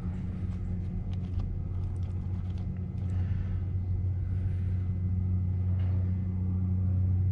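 Steady low hum with a rumble, unchanging throughout, over faint small ticks and trickling as gear oil drains from the outboard's lower unit into a glass jar.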